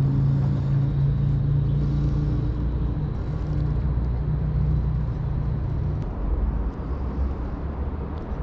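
A steady low engine drone with a hum, fading about six seconds in and leaving a lower rumble.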